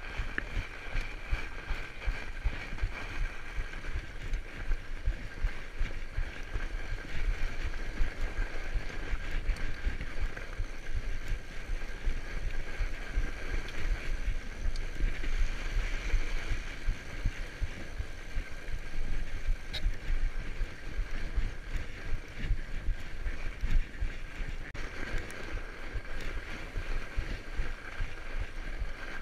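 A fat bike being ridden over a packed snow trail: the wide tyres rumble and crunch steadily, the bike rattles, and a steady high hum runs through it.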